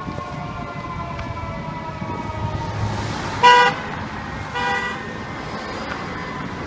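Fire truck siren winding down in a slow falling wail, then two short horn blasts about a second apart over steady city traffic.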